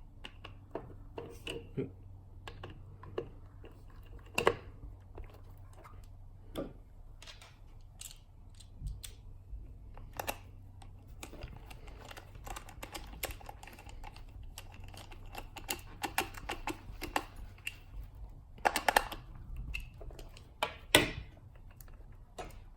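Irregular light clicks, taps and clatter of small tools and plastic RC-car parts being handled while wheels are fitted and lock nuts fastened on a Traxxas Mini E-Revo, louder near the end. A low steady hum sits underneath for the first half or more.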